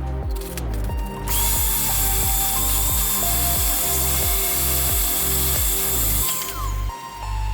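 A handheld power tool runs with a steady, high hiss for about five seconds, starting a little over a second in and stopping near the end, working surface rust off a cast iron table saw top. Background music with a pulsing beat plays throughout.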